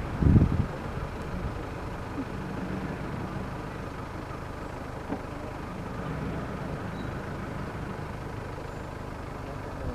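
Steady low hum of an idling vehicle engine, with a brief louder low rumble in the first half second.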